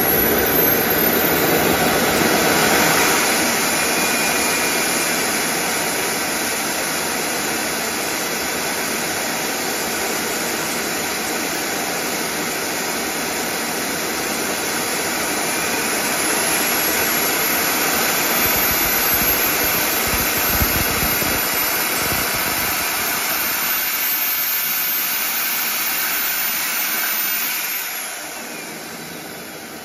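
FusionFlight ARC micro turbine generator running with a jet-like rush and a thin high whine. The whine climbs in pitch in the first couple of seconds and again about halfway through as the turbine speeds up. Near the end the whine falls and the sound drops noticeably quieter.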